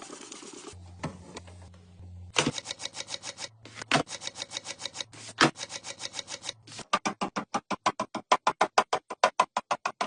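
Rapid, evenly spaced clicking or tapping, about six clicks a second, starting a couple of seconds in after a short hiss.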